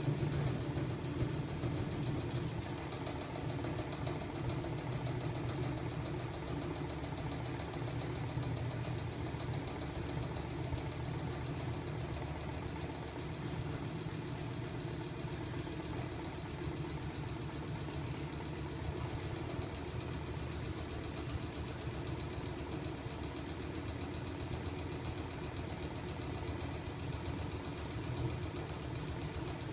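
Homemade magnet-coupled crankshaft and flywheel mechanism, driven by a small electric motor, running steadily with a fast, even mechanical clatter.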